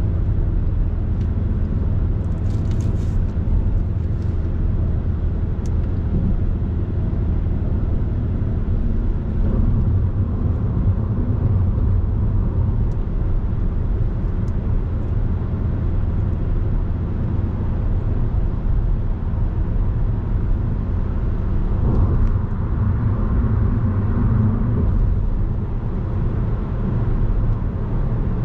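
Steady road noise inside a car's cabin at highway speed: a low rumble of tyres and wind. A brief faint crackle comes about three seconds in.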